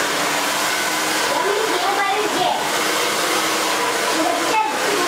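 Handheld hair dryer blowing steadily as a stylist blow-dries thick natural hair over a brush.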